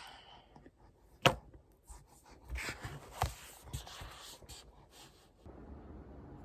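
Close handling noises: one sharp click about a second in, then a few softer clicks and brief rustling. A steady low hum takes over near the end.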